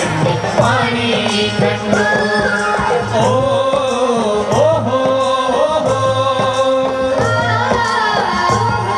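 Indian folk song: a singer's voice carrying the melody over a regular beat, accompanying a folk dance.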